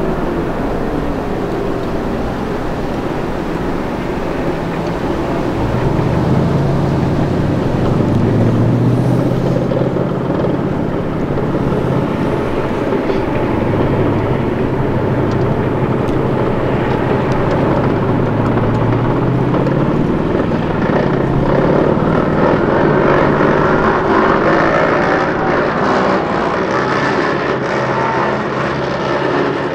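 Diesel engines of an armored vehicle column running steadily; one engine's pitch rises about six seconds in and drops back about twenty seconds in. Near the end a CV90 tracked infantry fighting vehicle drives closer, and its engine and tracks grow louder.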